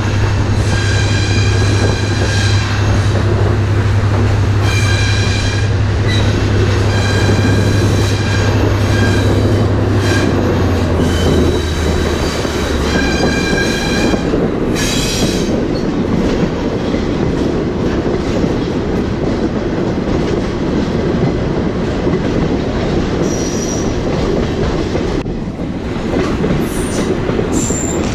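Train wheels squealing on and off through the first fifteen seconds or so, over the steady rumble of a caboose rolling along the rails. A low drone underneath drops in pitch about ten seconds in and dies away a few seconds later.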